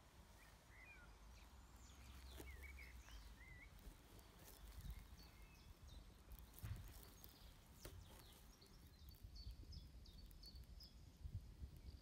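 Faint outdoor ambience: distant birds chirping, with a few short curved notes in the first few seconds and a run of quick higher notes in the second half, over a low wind rumble on the microphone and scattered faint clicks.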